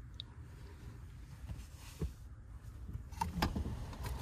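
Rustling and a few knocks and clicks as someone moves about and climbs toward the back window inside a truck-bed camper shell, busier near the end, over a low steady rumble.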